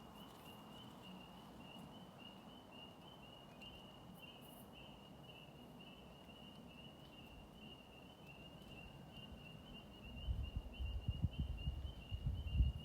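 A steady, high-pitched insect trill, pulsing slightly, carries on throughout over quiet forest ambience. From about ten seconds in, low rumbling buffets hit the microphone and are the loudest sound.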